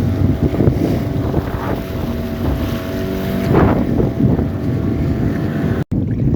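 Strong wind buffeting the microphone and water sloshing against a jangada rocking on a choppy sea, with a faint steady hum underneath. The sound drops out for an instant near the end.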